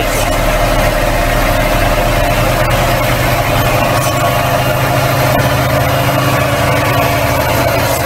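Diesel engine of heavy piling equipment running steadily at a constant speed: a loud, even drone.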